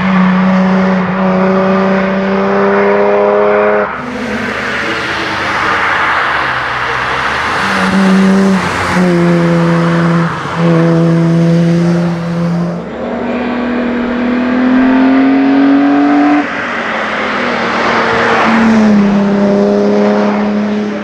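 BMW E30 SRT hillclimb race car engine running hard under load. The note holds high and fairly steady, with several short breaks and drops as the car is driven through gear changes and lifts while it passes close and pulls away up the hill.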